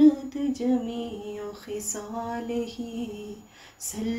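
A woman's voice singing a naat, an Urdu devotional song, in long drawn-out notes, breaking off briefly near the end before going on.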